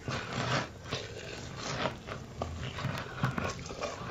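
Close-miked mukbang eating sounds: a man chewing food, with soft irregular mouth clicks.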